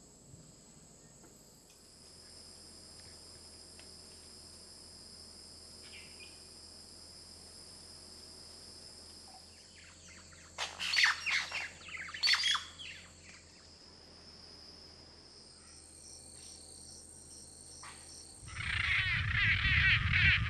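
Rainforest birds calling over a steady high insect drone, with a cluster of loud, sharp calls about halfway through. A loud, dense wash of sound starts near the end.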